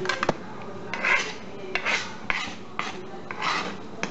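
A few sharp clicks, then about five short rasping scrapes of a kitchen utensil against cookware.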